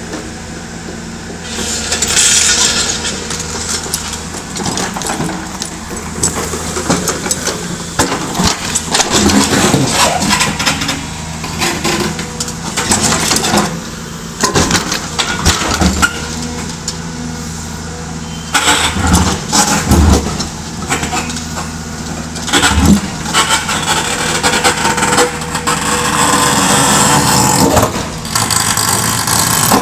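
Hydraulic excavator's diesel engine running steadily under load, with repeated knocks and scraping as the bucket works against rock.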